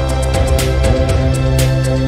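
Background music: held chords over a steady beat.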